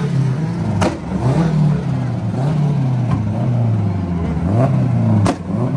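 An Acura TSX's four-cylinder engine is revved up and down over and over, its pitch climbing and dropping every second or two. Two sharp bangs stand out, one about a second in and one near the end, with a fainter one in between.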